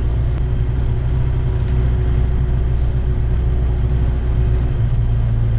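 Remos GX's Rotax 912 flat-four engine running steadily at low rpm with the propeller turning, heard as a deep even drone inside the cabin.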